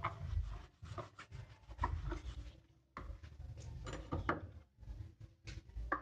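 Scattered light knocks, clicks and rubbing of kitchen utensils being handled at a countertop, with a plastic spatula set down in a plastic mixing bowl of batter.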